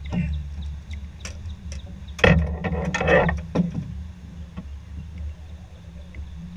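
A few sharp knocks and a short clatter of gear against an aluminum boat, as a landing net is grabbed during a fish fight, over a steady low rumble.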